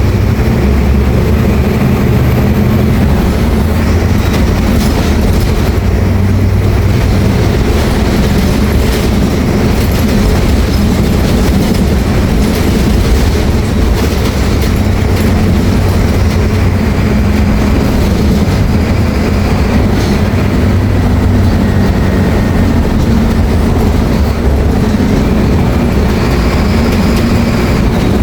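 Mercedes-Benz OF-1724L city bus's diesel engine running as the bus drives, with road noise; the engine note shifts in pitch several times.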